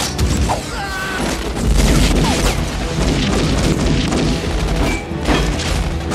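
Movie gunfight sound: dense automatic gunfire with glass smashing and crashing, loud from a sudden start, over an orchestral film score.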